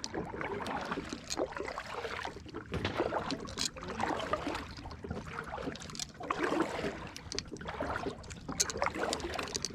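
Kayak paddle strokes in weedy lake water: irregular splashes and short knocks as the boat is pushed through the weeds.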